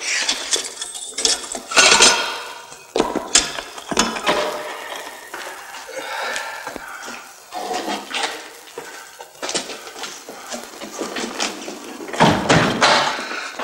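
Scuffling in a cell: a run of sharp knocks and clattering, mixed with brief grunts and cries. There is a louder stretch of rustling and thumping near the end.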